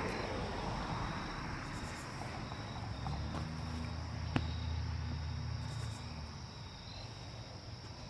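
Crickets chirping steadily, with a low rumble from about three to six seconds in and a single sharp click near the middle.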